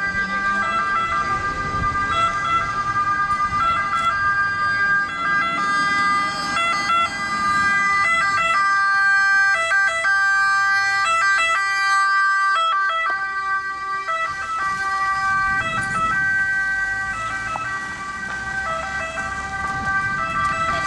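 Ambulance two-tone siren wailing, alternating steadily between a high and a low note. It grows louder toward the middle as the ambulance passes close by, then eases off a little.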